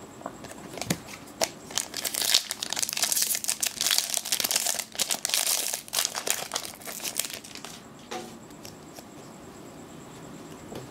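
Foil wrapper of a Magic: The Gathering booster pack being torn open and crinkled, a rapid run of crackles that dies down after about seven seconds.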